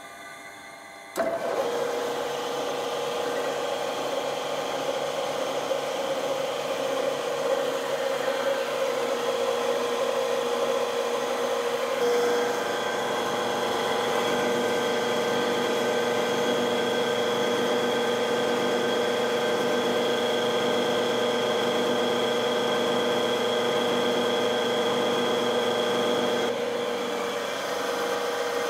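Milling machine spindle motor starting about a second in and running steadily with a whine, its tone shifting slightly about twelve seconds in.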